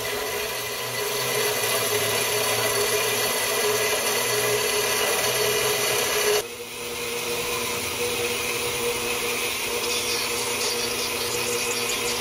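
Horizontal metal-cutting band saw running, its blade cutting through a steel coilover threaded body tube clamped in its vise: a steady grinding hiss. The sound changes abruptly about six seconds in.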